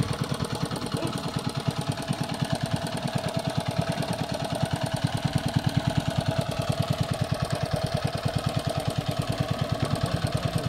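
Small engine running steadily at a constant speed, with an even, rapid chugging of about ten beats a second, typical of the engine-driven pump used to drain a pond.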